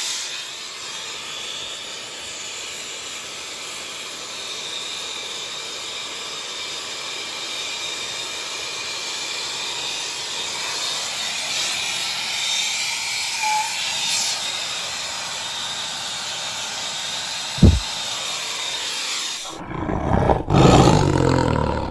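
Gas soldering torch flame hissing steadily while it heats a copper pipe joint. A single short thump comes near the end, then a louder, lower rumble fills the last two seconds.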